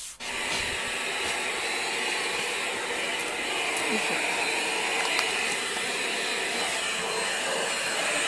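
Vacuum cleaner running with a loud, steady, even rushing noise.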